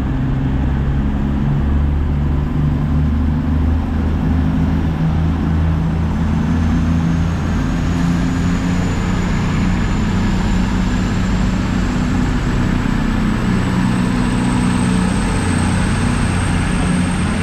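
Diesel train's engine running loud and steady, its low note shifting in steps, with a thin high whine that slowly rises in pitch from about a third of the way in.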